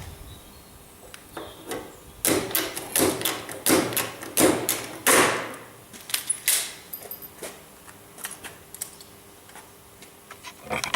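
Workshop handling noises: scattered clicks and knocks with a busy stretch of rustling and scraping about two to five seconds in.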